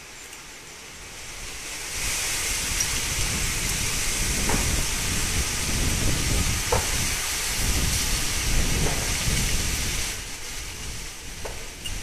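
Gusting wind: a rushing hiss with a low rumble buffeting the microphone. It swells about two seconds in and drops back near the end.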